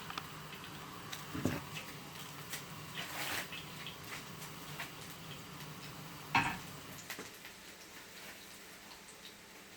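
Hot oil crackling and sizzling faintly in a frying pan, with scattered pops. A few knocks against the pan, the loudest about six seconds in.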